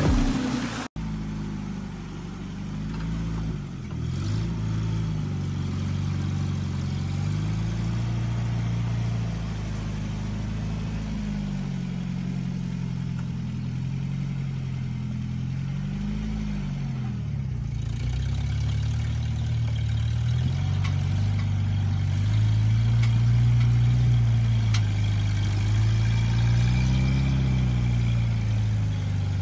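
Lifted pickup truck's engine revving up and down under load as it crawls up a steep dirt mound, the pitch rising and falling in slow swells. A second of music cuts off abruptly at the start.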